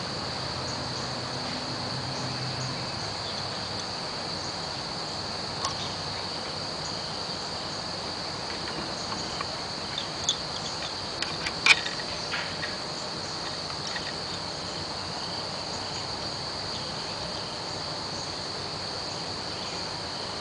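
Wooden Honiton lace bobbins clicking lightly against one another as they are lifted and passed over and under the coarse thread. There are a handful of sharp clicks, most of them between about ten and thirteen seconds in, over a steady high-pitched background tone.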